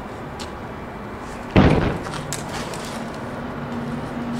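A single loud thump, like a slam, about a second and a half in, dying away within half a second, over a steady hiss. A faint low steady tone follows.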